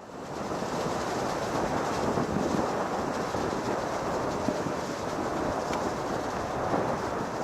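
Steady, rumbling noise of a Cessna 172's piston engine and propeller, swelling in over the first half second.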